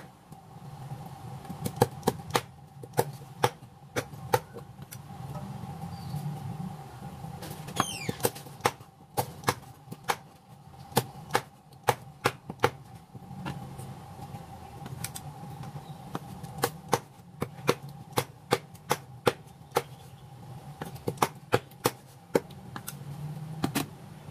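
Cleaver chopping raw chicken on a wooden chopping board: sharp, irregular chops, about one to three a second, in runs with short pauses.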